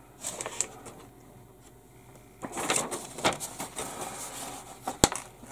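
Paper instruction sheet rustling as it is handled and folded over, in a brief bunch of rustles and then a longer one, with one sharp click about five seconds in.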